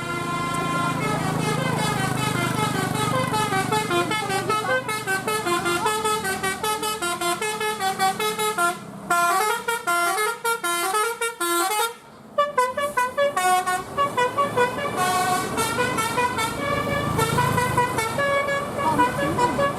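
Bus 'telolet' (basuri) musical air horns playing quick melodic runs of stepping notes, over a bus engine running. The tune breaks off briefly twice before picking up again.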